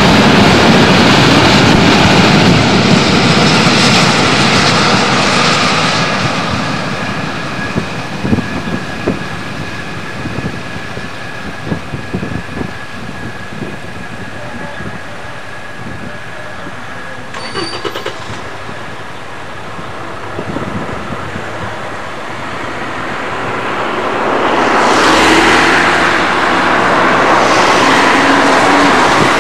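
A multiple-headed set of four DB V160-family diesel-hydraulic locomotives working a heavy tank-wagon train, engines running under load with a steady high whine over the exhaust and wheel noise. It is loud at first, falls away, and swells again near the end as the locomotives come close.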